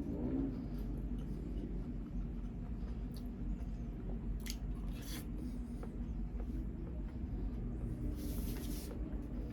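Quiet close-up eating sounds of a soft sticky-rice snack: soft chewing and mouth sounds with a few brief rustles, about four and a half, five and eight seconds in, over a steady low hum.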